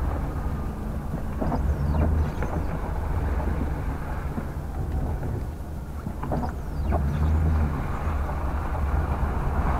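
Dodge van's engine running at low speed as the van turns, with its tyres rolling through hail slush and water, heard from inside the cab as a steady low rumble under a wash of road noise.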